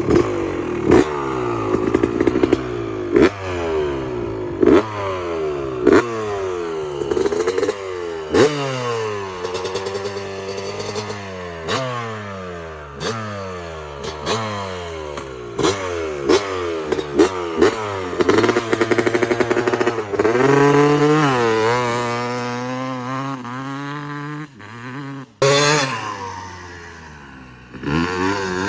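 Yamaha YZ250 two-stroke motocross bike with an FMF pipe and Pro Circuit R304 silencer, revved in quick throttle blips every second or two, the pitch falling back to idle after each. About two thirds in, the revs are held higher and wavering for a few seconds before dropping, with one more blip near the end.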